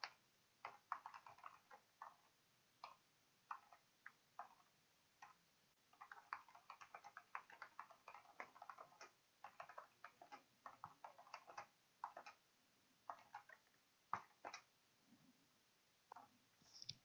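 Faint typing on a computer keyboard: irregular key clicks in short quick runs, broken by brief pauses.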